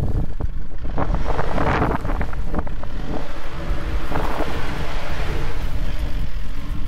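Isuzu pickup truck driving slowly past close by over dry grass and stubble, engine running and tyres crackling over the ground, while wind buffets the microphone with a heavy rumble.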